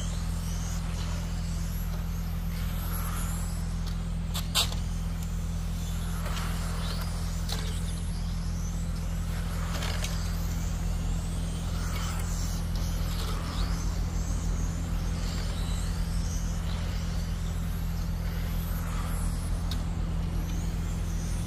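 Radio-controlled race cars lapping, their motors giving high whines that rise and fall as they pass, over a steady low hum. A sharp knock about four and a half seconds in.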